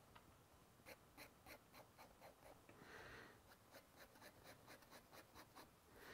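Faint scratching of a fountain pen nib on sketchbook paper in quick, repeated hatching strokes, about four or five a second, stopping shortly before the end.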